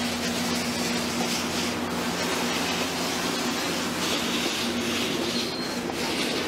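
Steady hiss with a low hum from a 1923 steam locomotive, fired on recycled vegetable oil, heard close up; a brighter, higher hiss rises about four seconds in and fades before the end.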